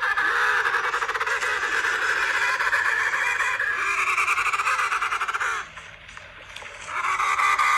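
Geese honking in a continuous chorus that stops about five and a half seconds in and starts again a little over a second later.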